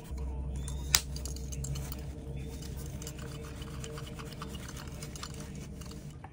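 Scrubbing and rubbing strokes while cleaning green corrosion off an old Keuffel & Esser compass, with one sharp click about a second in, over a low steady hum.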